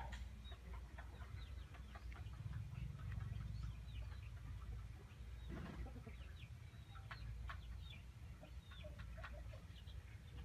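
Birds calling in many short chirps, scattered irregularly, over a faint low rumble.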